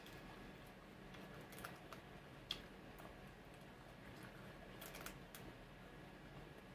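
Kitchen scissors cutting into the shell of a king crab leg: a few faint, sharp clicks and snips. The clearest is about two and a half seconds in, and three come in quick succession around five seconds.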